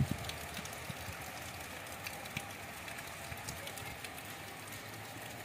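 Rain falling: a steady hiss dotted with small ticks of drops, with a few low thumps right at the start.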